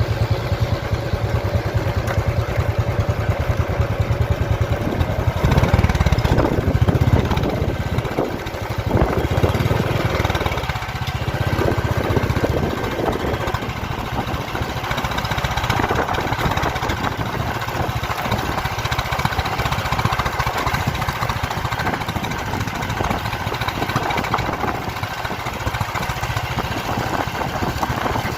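Motorcycle engine running on the move, with the steady rush of riding noise over it, swelling a little about six seconds in.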